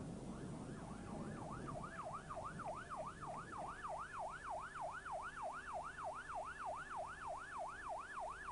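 Vehicle siren in a fast yelp, its pitch sweeping up and down about three times a second. It fades in over the first second or two and grows louder.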